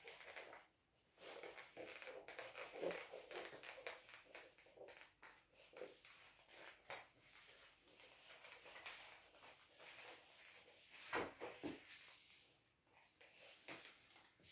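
Faint swishing of a duster being wiped across a whiteboard in repeated irregular strokes, a couple of them a little louder about eleven seconds in.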